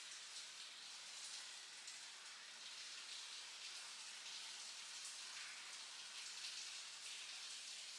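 Faint, steady hiss with light crackling throughout, like recording noise or room tone.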